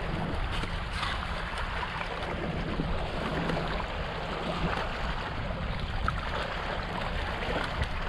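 Steady rushing of wind and lapping lake water, with a few faint light knocks from handling the cardboard box and fish.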